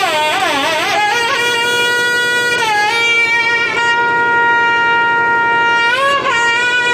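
Nadaswarams, South Indian double-reed pipes, playing a slow passage in raga Sindhu Bhairavi. It opens with quick wavering ornaments, settles on long held notes, dips briefly near the middle and slides upward near the end.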